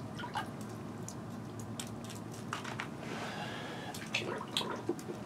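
Water dripping and small irregular clicks and knocks as a boat-style transom sonar transducer is handled back into the water of an ice-fishing hole, over a low steady hum.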